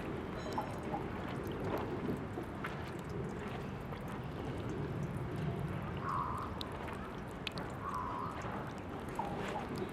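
Tap water running from an outdoor drinking-fountain faucet, a steady splashing trickle with scattered drips and plinks.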